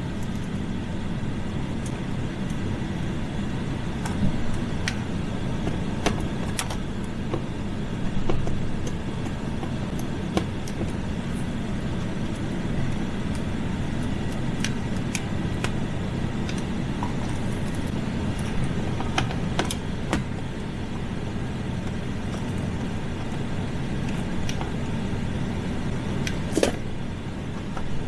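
A 2012 GMC Sierra's air conditioning blowing steadily inside the cab. Scattered short clicks and knocks sound over it.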